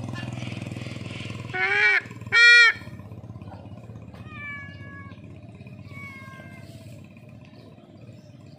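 A bird of prey standing over its food gives two loud calls about two seconds in, each rising then falling in pitch. These are followed by two fainter calls held at a steady pitch. A low steady hum underlies the first couple of seconds and then fades.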